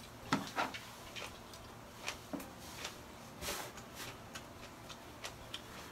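Eating by hand: irregular short smacks and clicks of chewing and of fingers picking at sticky rice and fish on a plate.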